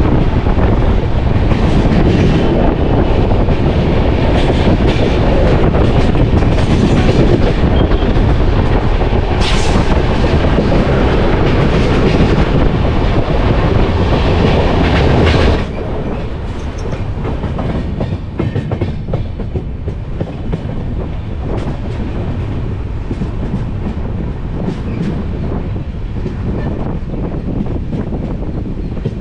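Uday Express train running at speed, its wheels rattling along the rails. About halfway through the sound drops suddenly to a quieter, steady running noise.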